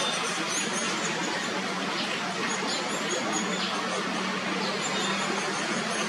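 Steady background noise of distant road traffic, with a faint low hum, and a few faint, short, high-pitched bird chirps scattered through it.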